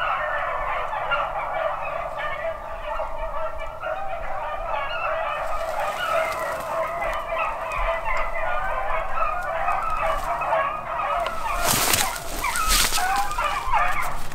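A pack of beagles baying in full cry while running a rabbit: a steady chorus of many overlapping, wavering hound cries. A few sharp rustles or knocks come close by near the end.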